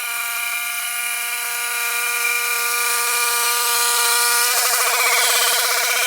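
Brush cutter engine running steadily at high speed with a high-pitched whine, turning rougher and pulsing about four and a half seconds in as it works through plant stems.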